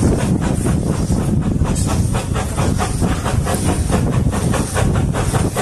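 Hunslet quarry saddle-tank steam locomotive approaching at low speed with a passenger train: steam hiss over a steady rumble, with a regular beat of about four or five strokes a second.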